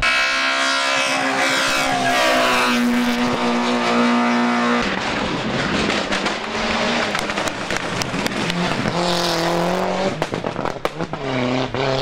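Competition cars driven hard on a tarmac hillclimb, one after another: loud engines whose note falls over the first few seconds, then another engine rising and falling near the end.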